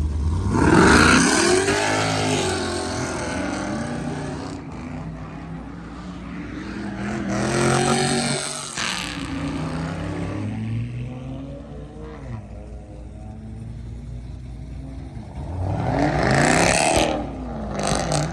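Modified V8 cars accelerating hard, three times: the engine note rises sharply and then falls away about a second in, around eight seconds and near the end, with lower engine running in between.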